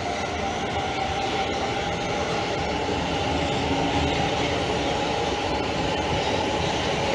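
A vehicle running steadily: an even rumble and hiss with a held whine on top.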